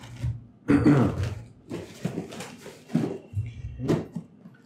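Cardboard parcel handled and its packing tape slit with a box cutter. A loud knock about a second in as the box is set down, then short knocks and scraping of the blade on tape and cardboard.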